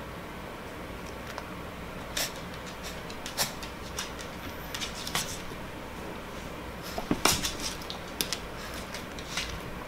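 A small dog's claws clicking and tapping on a hardwood floor as she spins, an irregular scatter of sharp ticks with the loudest cluster about seven seconds in, over a steady low hiss.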